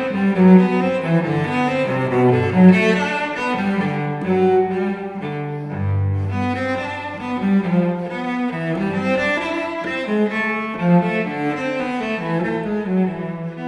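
Instrumental background music: a slow melody moving note to note over sustained bass notes.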